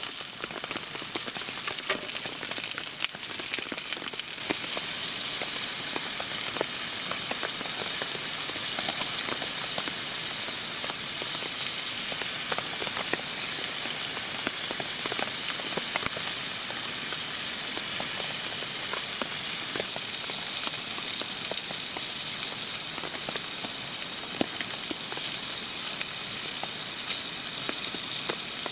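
Food sizzling in a pan over a campfire: a steady frying hiss with scattered small pops and crackles.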